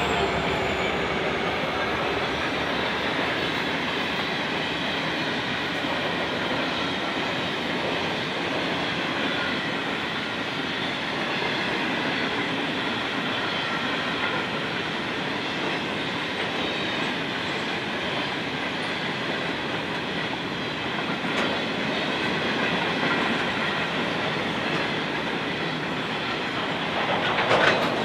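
Freight train of grain hopper wagons rolling steadily past close by: a continuous rumble and clatter of steel wheels on the rails, with a faint ringing squeal. There is a brief louder clatter near the end.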